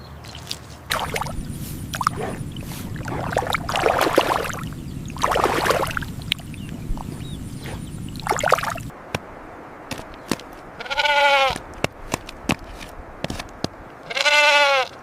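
Sheep bleating: several rough bleats over clicking and rustling at first, then two clear, drawn-out bleats in the second half.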